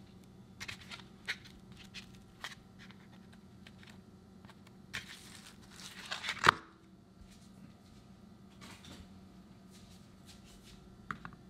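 White plastic ice cube tray of frozen cubes being handled: light clicks and scrapes as fingers pick at the cubes, then a longer crackling scrape that ends in a sharp knock about six and a half seconds in, as the tray is set down on the countertop.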